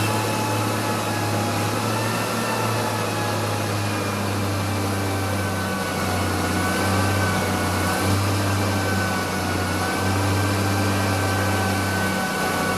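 Garbage truck at work collecting trash, its engine and compactor running: a steady drone under a high whine that wavers slightly in pitch.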